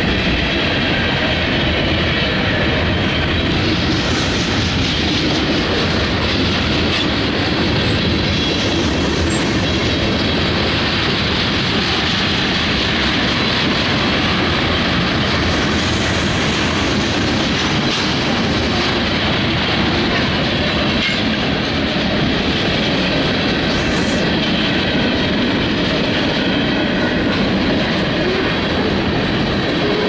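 Freight train cars, tank cars and covered hoppers, rolling steadily past: steel wheels running on the rails at an even level.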